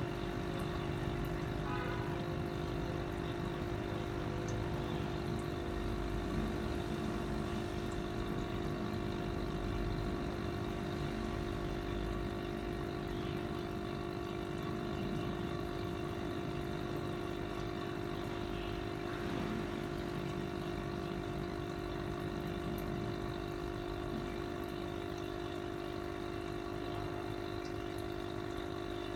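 Aquarium air pump humming steadily, with air bubbling into a goldfish bowl.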